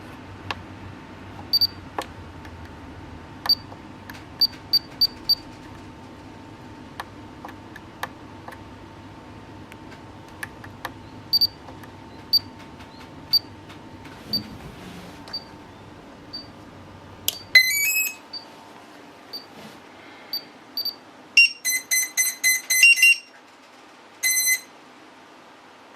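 Electronic beeps: short, high single beeps come every second or so, then a quick rising run of tones about two-thirds of the way in and rapid clusters of beeps near the end. Underneath runs a low steady hum that stops at about the time of the rising run.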